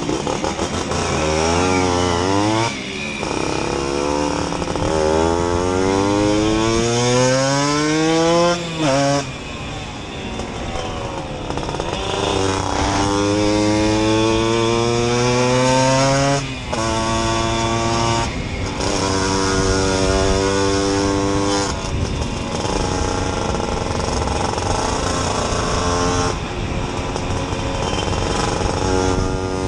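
Simson moped's 60 cc two-stroke single-cylinder engine with a Jack Motors exhaust, accelerating up through the gears. The pitch climbs, dips briefly and drops at each shift (near 3, 9, 16.5 and 18.5 seconds in), then climbs again, and for the last several seconds it holds a steady pitch while cruising.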